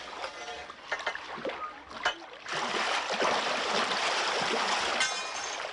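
Water splashing and churning in a small holding tank with a captured beluga whale in it. About two and a half seconds in it becomes a loud, steady rush of water.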